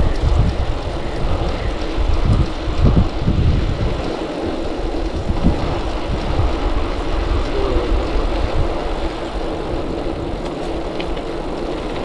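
Wind buffeting the microphone of a camera on a moving bicycle, a low gusty rumble that surges and eases, over a steady rush of the bicycle's tyres rolling on asphalt.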